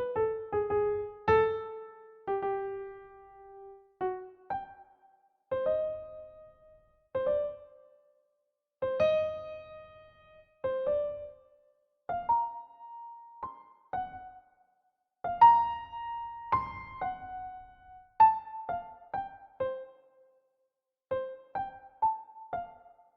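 Solo piano playing a slow, sparse melody of single notes and short phrases. Each note rings and fades, with brief pauses between phrases.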